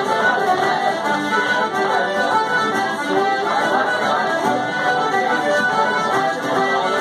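Live Irish traditional dance music played for set dancing: a quick, unbroken run of melody notes at an even loudness.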